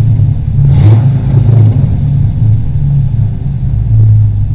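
Dodge Ram SRT-10's 8.3-litre V10 running at idle with a deep, pulsing rumble.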